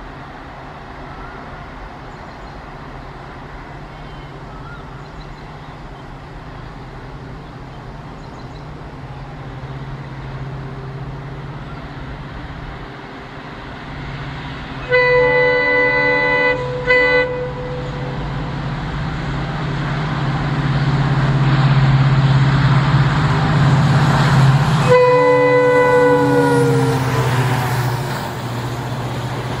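WDP4D diesel locomotive approaching and passing at speed, its engine drone growing steadily louder. About halfway through its horn sounds, one long blast then a short one. As the locomotive passes it sounds again, the horn falling in pitch as it goes by, and the rumble of the coaches follows.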